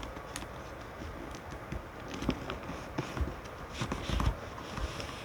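Scattered light taps and a few soft thumps of paper being handled and creased by hand, the loudest thump about four seconds in.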